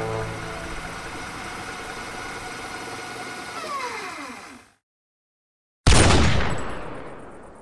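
Film score tones sliding down in pitch and cutting off abruptly. After about a second of silence comes a single loud pistol gunshot that rings and slowly dies away.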